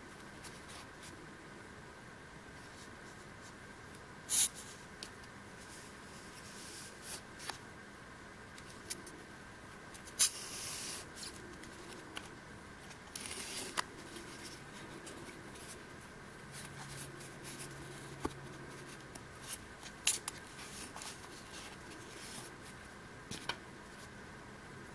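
Hobby knife cutting through layered craft foam on a wooden block: scattered short scrapes and sharp clicks, with a few brief louder scraping strokes, over a faint steady hum.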